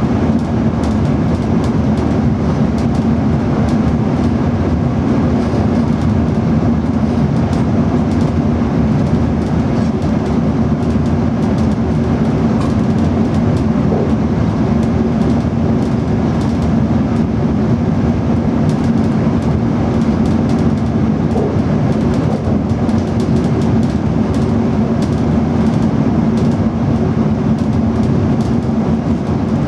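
DB Class 425 electric multiple unit running at steady speed, heard from the driver's cab: an even rolling noise with a steady hum and faint frequent clicks.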